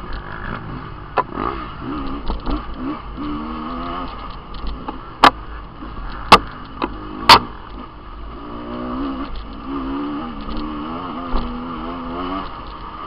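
Dirt bike engines revving up and down while riding a rough off-road trail, the pitch rising and falling with the throttle. Three sharp knocks about a second apart near the middle.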